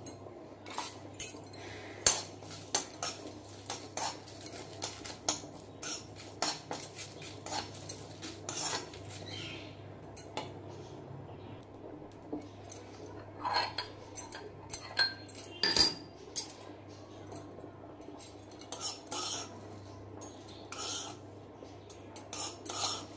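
Metal spoon scraping and clinking against a kadhai as whole spices are stirred while dry-roasting, in irregular sharp scrapes and taps; the loudest clink comes about two-thirds of the way through. A low steady hum runs underneath.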